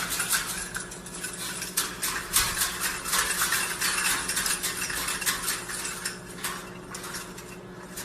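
Irregular clattering and clinking of small hard objects, many quick knocks in a row, over a steady low hum.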